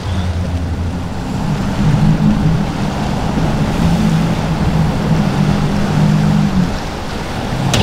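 Multiple outboard engines on a powerboat running hard through breaking inlet waves, over a steady rush of spray, surf and wind. Near the end the engine note drops away, leaving the wash of water and wind.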